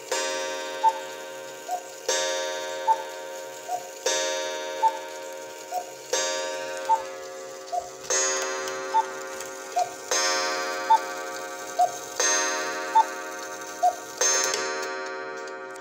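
Quail cuckoo clock striking the hour: a two-note cuckoo call, high then lower, followed by a ringing gong strike, repeating about every two seconds. The last gong strike rings out near the end.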